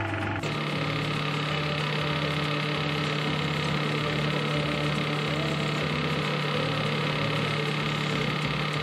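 Belt grinder running steadily with a constant motor hum, its abrasive belt grinding a steel knife blade held against the contact wheel.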